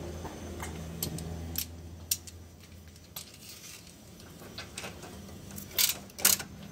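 Metal hand tools (a spanner and a socket wrench) clinking and clicking against each other and the battery terminal hardware while a battery cable is being fastened: a few separate sharp clinks, the loudest two near the end, over a steady low hum.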